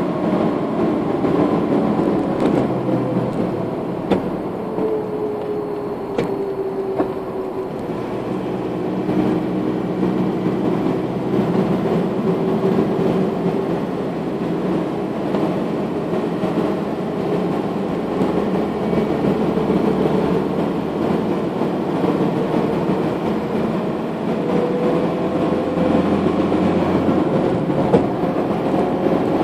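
Car driving on an asphalt road, heard from inside the cabin: steady tyre and road noise under an engine hum whose pitch slowly rises and falls with speed through the bends, with a few light knocks.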